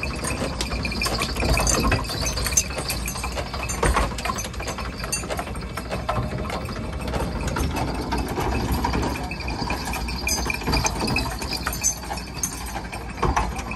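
Ox-driven flour mill (kharas) running: its big toothed iron gear wheel and shaft rattle and clatter steadily as the millstone turns, with a few louder knocks.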